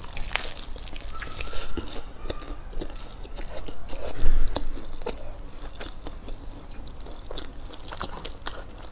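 A person biting into and chewing a Chinese hand-grabbed pancake (shou zhua bing) wrap, with scattered crisp crunches and a louder thump about four seconds in.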